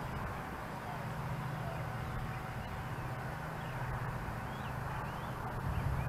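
Strong wind buffeting the microphone in a steady low rumble, with a few short bird chirps about four to five seconds in.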